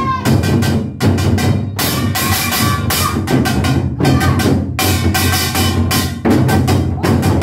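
Modeumbuk, a set of Korean barrel drums, struck in rapid, continuous phrases of strokes, with pitched music sounding underneath.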